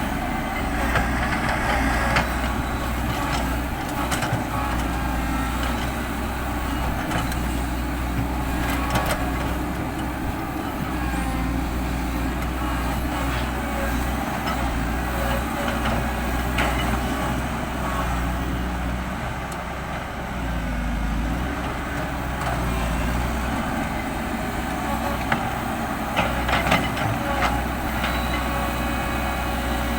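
Heavy diesel earthmoving machinery running steadily, with a few sharp knocks and clanks near the start, about nine seconds in, and again near the end.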